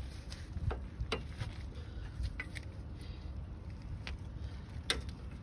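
About half a dozen light, irregular clicks and taps of metal brake parts and tools being handled, as a greased brake pad is worked into place, over a low background rumble.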